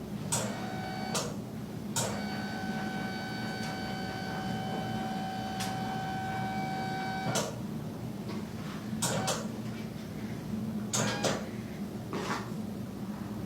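A series of short rustles and taps from hands, skin and clothing shifting on a treatment table during a chiropractic neck adjustment, over a steady low hum. A faint steady high tone runs from about two seconds in to past the seventh second.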